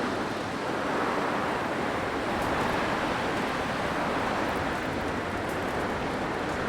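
Blizzard wind blowing steadily, a dense even rush that swells slightly now and then.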